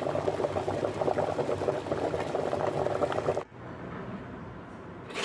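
Soup bubbling at a boil in a pot, a dense crackle of bursting bubbles that cuts off suddenly about three and a half seconds in.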